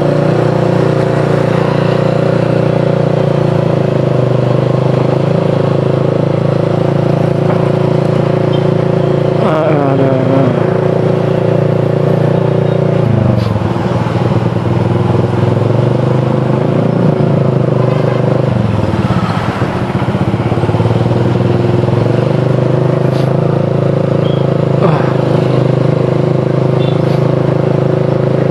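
Motorcycle engine running steadily under way. It eases off about halfway through and again a few seconds later, the pitch falling and then picking back up.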